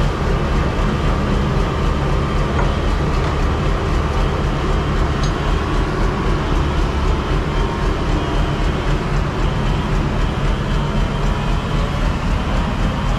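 Lonking CDM6225 excavator's diesel engine running steadily at working revs, a deep even drone, as the machine slews its upper structure around on the low-bed trailer.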